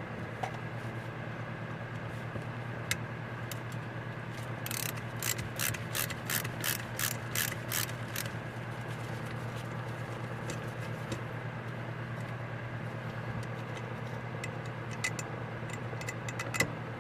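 A hand ratcheting tool clicking as screws are backed out of a carburetor, a quick run of about ten clicks roughly three a second in the middle, with a few scattered clicks elsewhere. A steady low hum runs underneath.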